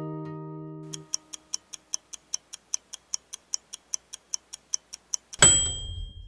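Harp music fades out, then a clock-like ticking, about five ticks a second, for some four seconds, ending in a single loud bell ding with a low thud beneath, like a kitchen timer going off. It is an added sound effect under the closing logo.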